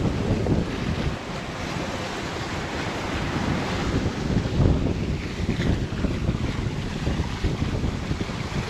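Wind buffeting the microphone over the sea rushing along a sailboat's hull while it is under way, a steady rough rumble heaviest in the low end.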